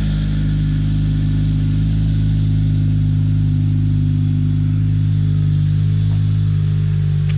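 Acura TSX idling steadily through a Yonaka catback exhaust and PLM header, shortly after a cold start. The engine note holds an even, unchanging pitch throughout.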